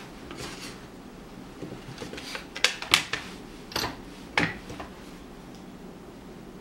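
Clear plastic panels clacking against each other and the workbench as they are handled and picked up: a handful of sharp knocks in the middle stretch, between quiet handling.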